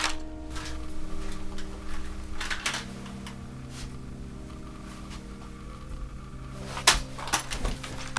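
Suspense film score of held low chords that shift about a third of the way in, with a few soft knocks and rustles over it and a sharper click near the end.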